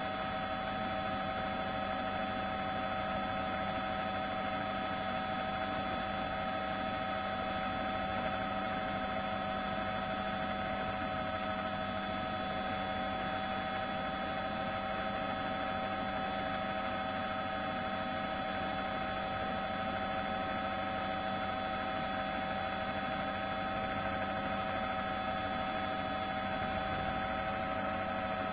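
Steady, unchanging drone of a news helicopter heard from inside the aircraft: turbine and rotor noise with several constant whining tones over a hiss.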